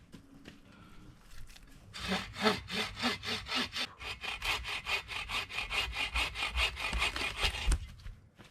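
Hand saw cutting through a piece of deadwood, quick back-and-forth strokes at about three a second, starting about two seconds in and stopping near the end.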